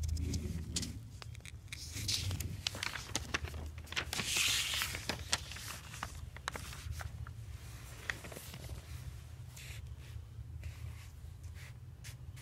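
Pages of a paper question booklet being handled and turned, rustling with many small clicks, loudest about four to five seconds in, over a steady low hum.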